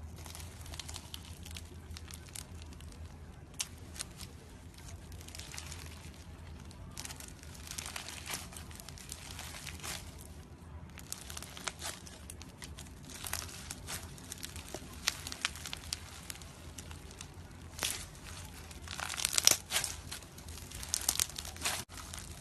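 Slime being squeezed and stretched by hand, giving a run of irregular crackling clicks and small pops, densest and loudest near the end, over a faint low hum.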